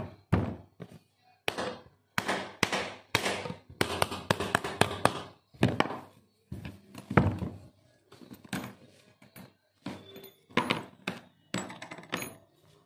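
Irregular knocks and thuds of a Lawkim ductable fan motor's metal casing being handled and turned over on a workbench, some in quick clusters.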